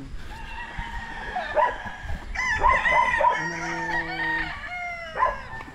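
Several gamefowl roosters crowing, their calls overlapping, with one long held crow from about two and a half to four and a half seconds in.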